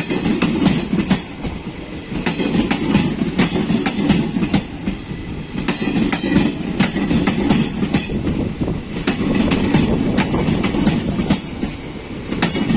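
Passenger express train rolling past at speed: a steady rumble from the coaches' wheels, with a rapid, irregular clatter of clicks as the wheels cross rail joints.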